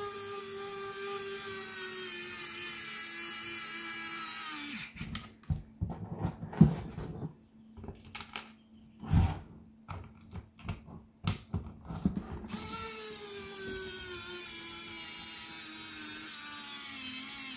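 General Tools 500 cordless precision screwdriver's small electric motor whining as it drives a screw into a plastic case, its pitch slowly sinking, until it stops about five seconds in. Scattered clicks and knocks follow, and a second run of the motor whine starts about twelve and a half seconds in, again slowly dropping in pitch.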